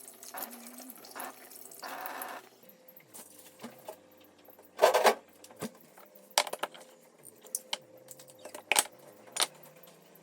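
Kitchen handling sounds: scattered clinks and knocks of dishes and utensils, with short splashes of water early on and one louder clatter about five seconds in.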